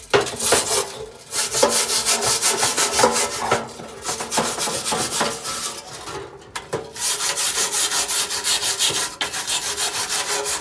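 Hand deburring of a cut edge: quick back-and-forth rasping strokes, about three a second, with a short pause about six seconds in.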